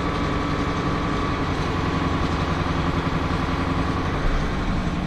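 Cat 225DLC excavator's diesel engine running steadily while the operator slowly moves the arm back.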